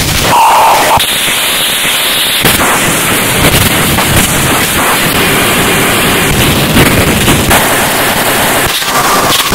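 Harsh digital noise music: a loud, dense wall of distorted noise packed with clicks and abrupt cut-up edits, with a brief tone about half a second in and a short dip near the end.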